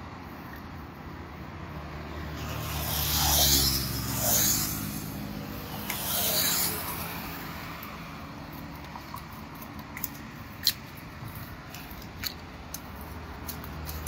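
Cars passing on the road close by: one swells and fades about three seconds in, another a few seconds later. Near the end come a few short, sharp clicks.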